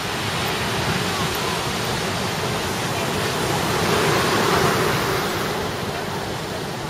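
Ocean surf breaking and washing up the beach: a steady rushing roar that swells a little about four seconds in.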